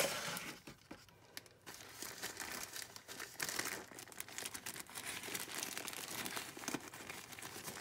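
Plastic bag and newspaper crinkling and crackling irregularly as they are handled while the bag is filled. The crinkling dips briefly after the start, then carries on steadily.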